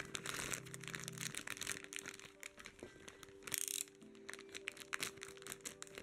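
Clear plastic packaging crinkling and rustling as it is handled, in a dense irregular crackle with a louder burst a little past halfway. Background music plays underneath.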